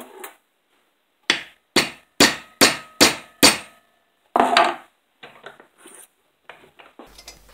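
Hammer striking a small metal bracket held in a bench vise, tapping its bend to a slightly steeper angle: six quick sharp blows about a second in, then a longer knock and a few light clinks of tool on metal.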